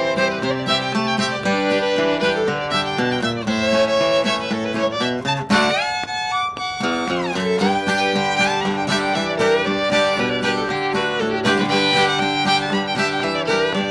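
Bluegrass fiddle and acoustic guitar playing an instrumental passage of an original tune, with a fiddle slide in pitch about halfway through.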